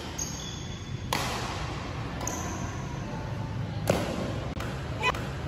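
Badminton rally: rackets striking the shuttlecock, several sharp hits about a second apart, some with a brief high ping from the strings.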